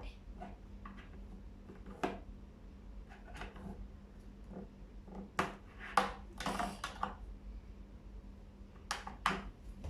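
Hands handling a plastic fashion doll and its accessories: scattered light clicks, taps and rustles, a few of them sharper knocks.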